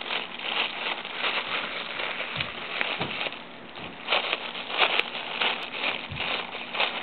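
Clear plastic bag crinkling and rustling in irregular bursts as a cat bites and chews at it.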